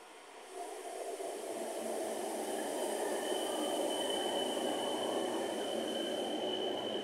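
Electric multiple-unit train running along a station platform: a steady rush of wheel and running noise that builds over the first couple of seconds. A thin, steady high whine joins in about three seconds in.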